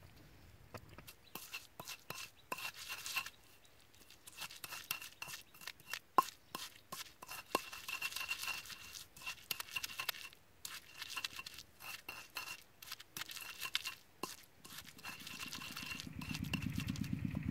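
Wooden pestle pounding and grinding chillies and garlic in a stone mortar: irregular knocks and gritty scrapes of wood on stone, with one sharp knock about six seconds in. Near the end a low, evenly pulsing engine starts up and carries on.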